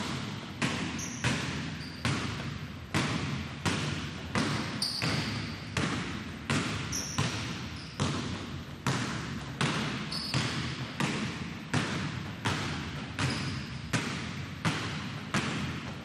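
Two basketballs dribbled together on a hardwood gym floor, bouncing in unison in a steady rhythm, each bounce echoing in the hall. A few short, faint high squeaks come in between.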